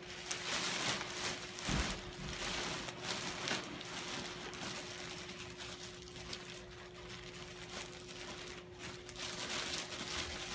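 Plastic bale bag crinkling and rustling in irregular bursts as its corners are pulled together and tied in a knot, over a steady faint hum.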